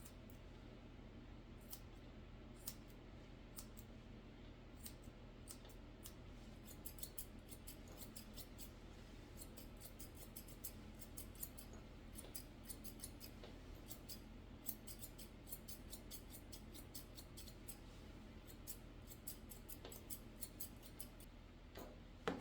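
Curved grooming scissors snipping a puppy's coat in quick runs of faint, small clicks, with a single sharper click near the end.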